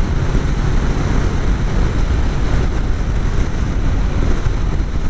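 Steady wind rush and engine noise of a motorcycle cruising at road speed, picked up by a helmet-mounted microphone.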